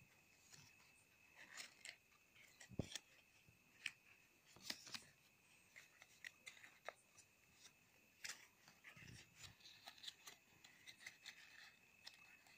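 Faint crinkling and rustling of folded paper being handled and opened by hand, with scattered small clicks and taps, over a faint steady high whine.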